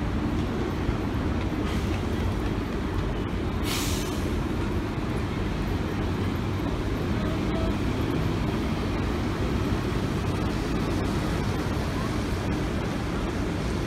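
City buses' engines running as they move off from the stands: a steady low rumble, with a short air-brake hiss about four seconds in.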